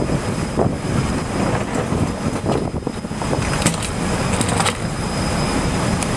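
Steady low rumble of a warship's machinery with wind across the open deck, under a faint steady high whine, and a few light knocks scattered through.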